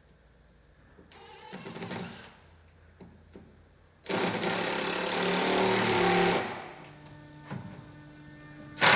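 Power drill driving screws into wood: a short run about a second in, then a louder run of about two seconds starting about four seconds in.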